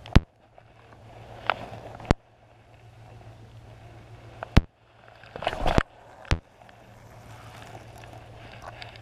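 Handling noise of a spinning rod and reel: four sharp knocks about two seconds apart, with a short burst of rustling and scraping a little past halfway, over a low steady background.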